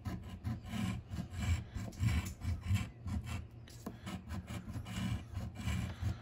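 A coin scratching the silver latex coating off a lottery scratch-off ticket lying on a wooden tabletop, in quick repeated scraping strokes.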